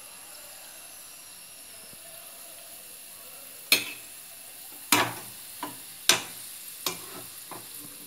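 Julienned carrots frying in hot oil and ghee, sizzling steadily. From about halfway in, a perforated metal skimmer knocks sharply against the pan and plate about six times as the fried carrots are scooped out.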